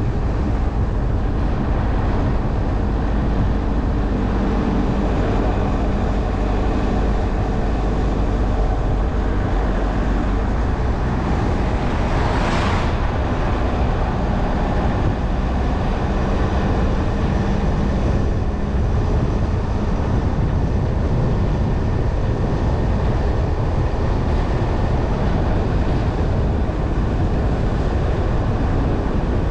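Jeep Trailhawk SUV driving at steady speed on a cleared road: constant tyre and road noise with a low engine hum. A brief whoosh rises and falls about twelve seconds in.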